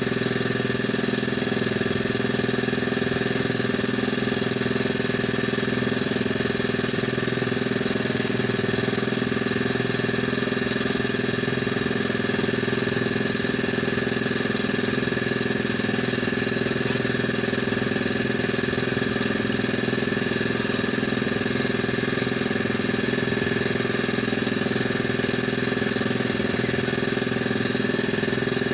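A small engine aboard an outrigger fishing boat, running steadily at idle with an even hum that does not change.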